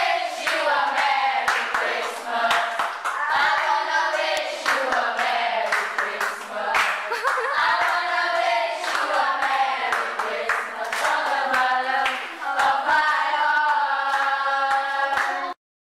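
A group of children singing together with steady hand clapping. The singing and clapping cut off suddenly near the end.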